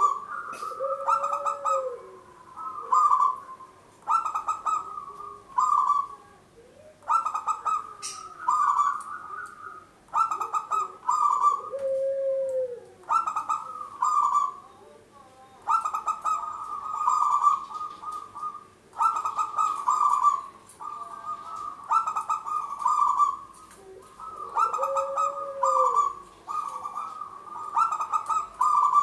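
Zebra dove (perkutut) singing: phrase after phrase of rapid staccato cooing notes, each one to two seconds long, with short pauses between.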